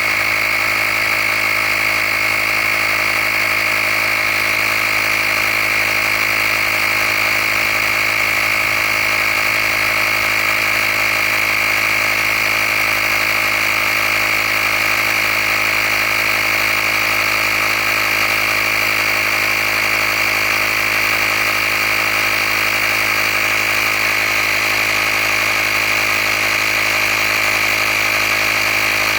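Handheld tire-inflator air compressor running steadily as it pumps up a tire, with a strong high-pitched whine over its motor hum.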